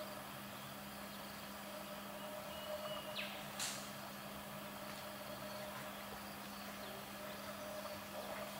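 Faint outdoor ambience: a steady low hum with a brief high bird call, a short whistle then a quick upward sweep, about three seconds in.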